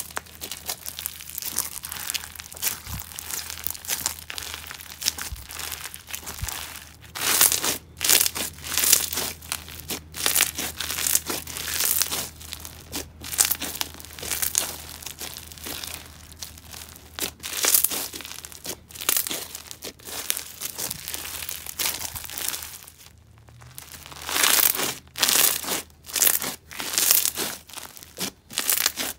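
Crunchy slushy slime packed full of beads being squished and pressed by hand, crunching in repeated irregular bursts, with a brief pause about four-fifths through.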